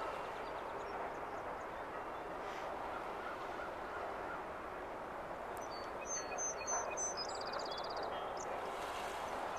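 Distant ducks quacking over a steady outdoor background.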